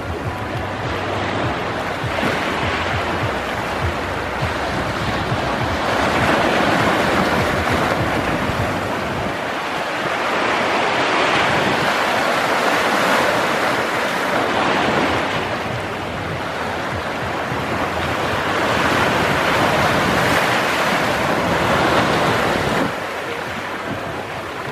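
Sea waves breaking on rocks: a continuous rushing wash of surf that surges louder every several seconds and eases off between breakers.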